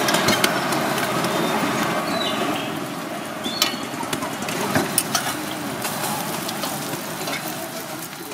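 Steady hum and hiss of a busy street food stall, with scattered clicks and taps of a metal spatula cutting egg omelette sandwiches on foil-lined plates.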